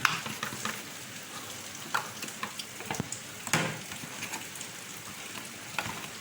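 Roast chicken and pork sizzling hot in the pan, a steady hiss broken by a few sharp pops and clicks.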